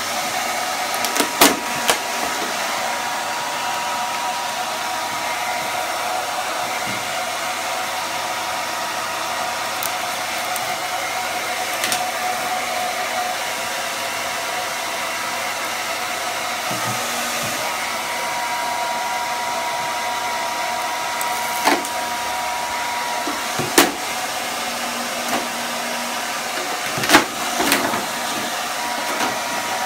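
Handheld hair dryer running steadily, blowing hot air to soften the glue under a vinyl cupboard-door wrap. A few short, sharp clicks or knocks stand out, a couple about a second in and several more in the second half.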